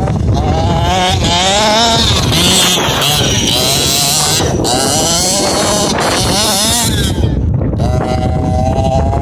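A 1/5-scale RC buggy's two-stroke petrol engine revving up and down repeatedly as the car is driven, its pitch rising and falling about once a second.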